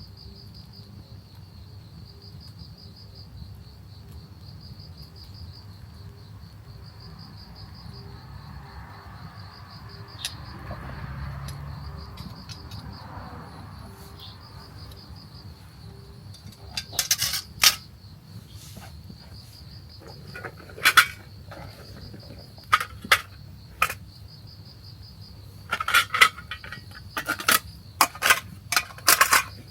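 An insect trills steadily in a fast pulsing rhythm. From a little past halfway, a series of sharp metallic clinks and clanks of gear being handled comes in, louder than the trill.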